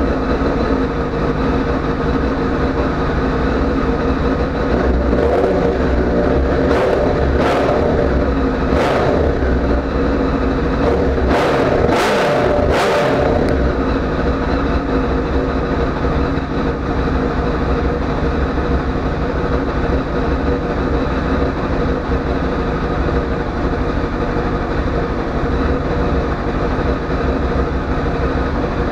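Honda CBR1000RR inline-four engine running through its stock silencer with the baffle drilled out, revved in several short blips in the first half, then idling steadily.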